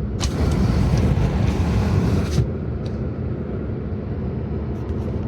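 Vehicle running along a road: a steady low engine and road rumble, with a gust of hiss, such as wind on the microphone or a passing vehicle, from just after the start to about two and a half seconds in.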